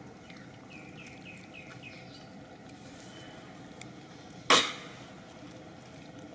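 A run of about six short, high, falling chirps in the first two seconds over a low steady background, then one sharp, loud crack or knock about four and a half seconds in.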